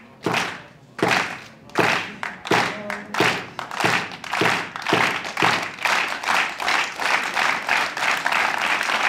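Spectator crowd clapping in unison at about two claps a second. The beat grows faster and denser and breaks into general applause over the last few seconds.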